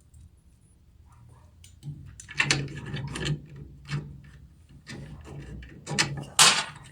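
Handling noises of a stock CPU cooler being set onto the processor: clusters of small plastic-and-metal clicks, knocks and scraping that start about two seconds in, with the loudest near the end.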